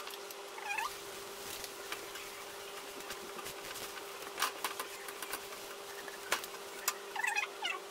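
Wooden spatula pressing and turning a flatbread on a non-stick pan, with a few sharp clicks as it meets the pan, over a steady hum. Brief squeaky chirps come just under a second in and again near the end.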